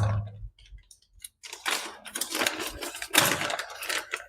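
Hands opening and handling a plastic accessories packet, with crinkling and rustling in irregular bursts from about one and a half seconds in, after a soft knock at the start.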